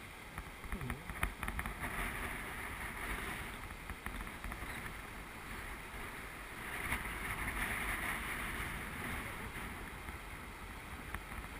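Steady rush of white water pouring over a river weir, swelling louder twice, with wind buffeting the microphone. A few short clicks and knocks in the first two seconds.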